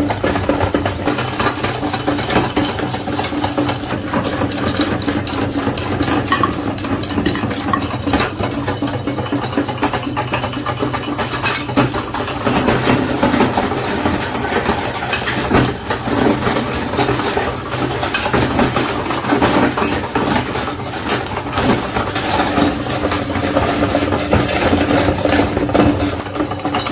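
Electric meat grinder running steadily, its motor humming under dense crackling and rattling as it grinds chocolate-coated Magnum ice cream bars.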